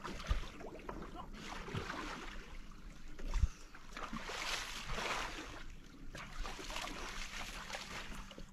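Small waves lapping and sloshing at the lake's edge, swelling and fading several times, with a low thump about three and a half seconds in.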